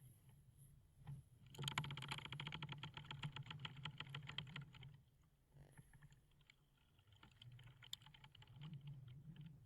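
Wooden ship timbers creaking: a long creak made of rapid clicks from about a second and a half in until about five seconds, then a fainter one near the end, over a low steady rumble.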